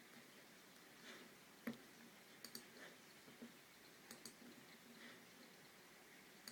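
Apple Magic Mouse button clicks, faint: one louder single click, then several quick pairs of clicks like double-clicks.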